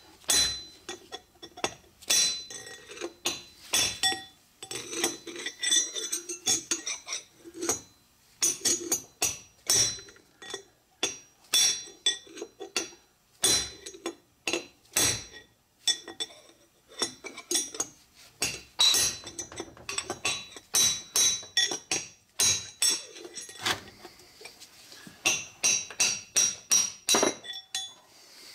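Hammer driving a steel punch against the back of an old wheel bearing race in a front hub-rotor: many sharp, ringing metal strikes in quick runs with short pauses between. The race is being walked out of the hub by hitting it on alternating sides.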